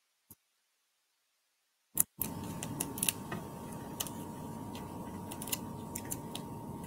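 Dead silence for about two seconds, then a sharp click as the sound cuts back in. After that come low room noise with a faint steady tone and scattered light taps and ticks as cardstock pieces are handled and pressed down onto a card base.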